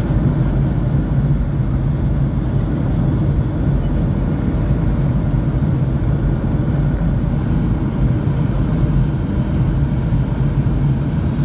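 Jet airliner cabin noise heard from a window seat on descent: the engines and rushing air make a steady, even, low noise with a faint hum underneath.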